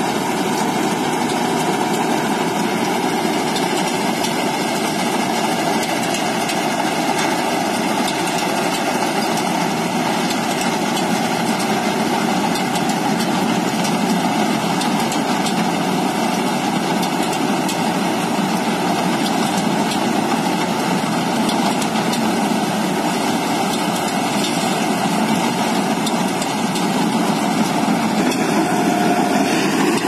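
Combine harvester cutting ripe rice, its engine and machinery running with a steady, continuous drone that grows a little louder near the end.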